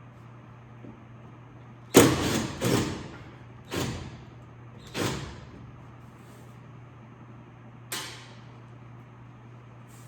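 Sharp knocks and clunks from hand work on a truck door: three in quick succession about two seconds in, then single ones about four, five and eight seconds in.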